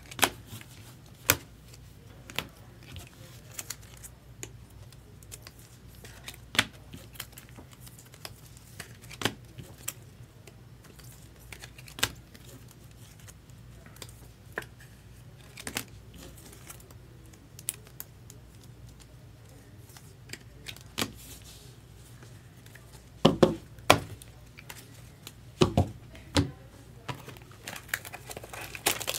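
Trading-card boxes and packs being opened and handled: irregular clicks, taps and light crinkling of packaging, with a cluster of louder knocks near the end. A steady low hum runs underneath.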